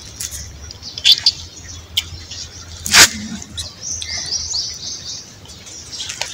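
A small bird chirping a quick run of short high notes about four seconds in. Earlier come a few sharp smacking clicks as a boy sucks milk straight from a goat's teat.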